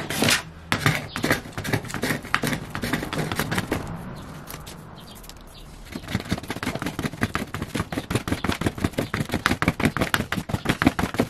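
Metal hand scraper drawn in quick short strokes along the glue joint of a walnut panel, scraping off hardened wood-glue squeeze-out. The strokes ease off briefly in the middle, then come fast again, several a second.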